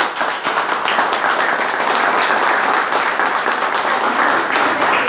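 A small group of people clapping their hands together, a steady patter of applause that stays even throughout.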